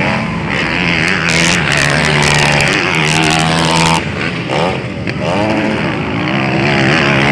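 Motocross dirt bike engines revving hard, the pitch rising and falling with the throttle as the bikes take a jump. The sound cuts abruptly about four seconds in to another bike revving.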